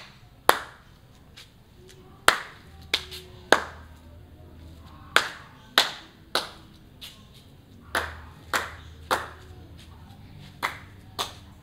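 Single hand claps, about a dozen at irregular intervals, each with a short room echo. They are picked up by a Synco Mic-M2 supercardioid condenser microphone while the clapper moves gradually round behind it.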